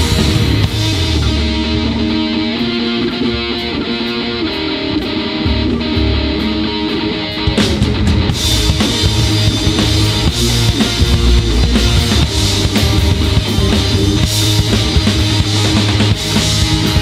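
Instrumental passage from a live rock band (electric guitars, bass and drum kit), heard as a mono mixing-desk recording with no singing. A sparser groove with light, evenly spaced cymbal ticks gives way a little past halfway to the full band, with cymbals crashing in.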